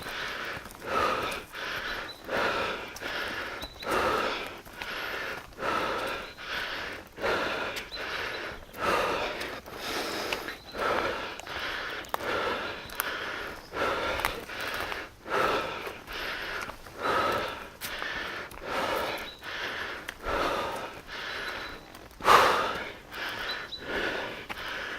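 A hiker's heavy, rhythmic breathing while climbing a steep mountain slope, about one breath a second. One breath a little before the end is louder than the rest.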